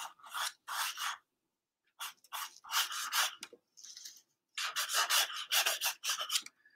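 Drawing pencil scratching across sketchbook paper in short strokes. The strokes come in quick groups with brief pauses between them, picked up close.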